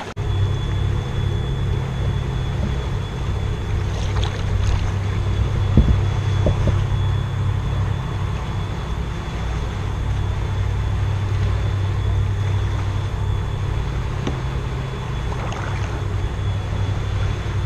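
An engine running steadily: a constant low drone with a faint high whine over it, and a few light knocks about four and six seconds in.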